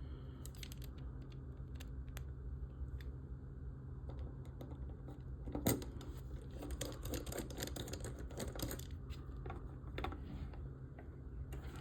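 Small, irregular clicks and taps of a small screwdriver working tiny screws into model-kit parts, with one louder click a little past halfway, over a steady low hum.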